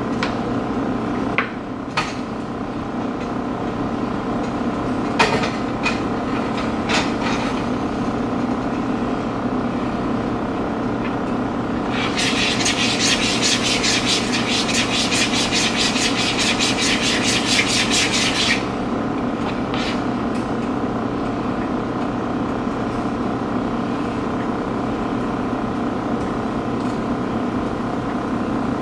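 Pancake batter being beaten in a bowl: a quick scraping rattle of about six strokes a second that lasts some six seconds around the middle. It sits over a steady machine hum, with a few light clicks of a bottle cap being handled in the first seven seconds.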